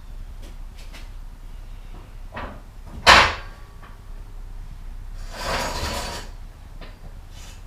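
Handling noises: a few light knocks, a sharp loud knock about three seconds in, and about a second of scraping or rattling around five seconds in.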